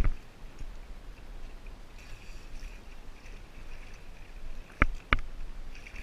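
Calm sea water lapping close by, over a low rumble, with two sharp slaps of water near the end, about a third of a second apart.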